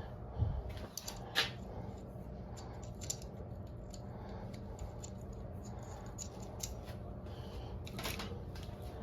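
Scattered light clicks and taps of small metal parts and tools being handled on a bench, over a steady low hum.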